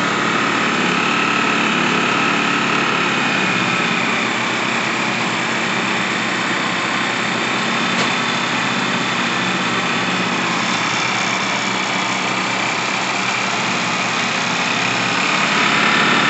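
Generac GP1200i inverter generator's small single-cylinder engine running steadily on its freshly cleaned and rebuilt carburetor. Its pitch sags a little about four seconds in, picks back up later, and it gets slightly louder near the end.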